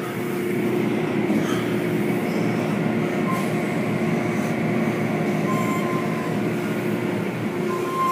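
Automatic tunnel car wash machinery running: a steady mechanical rumble of water spraying, brushes turning and motors, with a brief high whine that comes and goes a few times.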